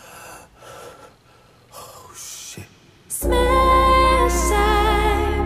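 A few faint breaths or gasps in near-quiet, then, about three seconds in, the song's music comes in suddenly: sustained chords over a deep steady bass, with a wavering melody line above.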